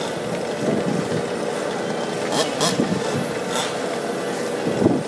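Small two-stroke gas engines of several 1/5-scale RC cars idling together, with a few short throttle blips that rise and fall in pitch.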